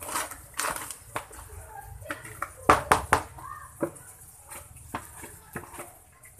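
A spatula scraping and stirring crumbly groundbait in a plastic basin, with sharp knocks of the spatula and a second plastic bucket against the basin; a quick run of loud knocks comes about three seconds in.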